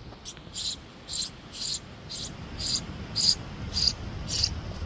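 Young birds in a nest under a roof gutter giving a series of short, high, rasping calls, about two a second.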